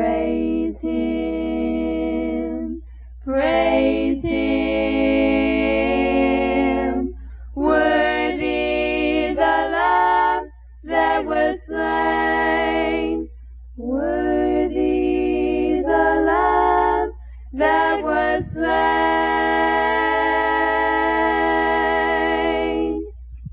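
A cappella vocal group singing the closing phrases of a gospel hymn in close harmony: long held chords broken by short breaths, ending on a long final chord. A steady low hum runs underneath.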